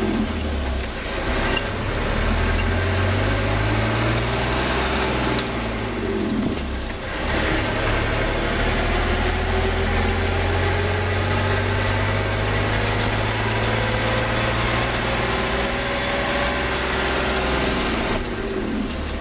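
Magirus truck engine pulling away uphill through the gears of its unsynchronised gearbox. The engine note rises slowly in each gear, then drops quickly at each double-clutched upshift, about a second in, around six to seven seconds in, and near the end, as the engine brake is worked to pull the revs down for the next gear.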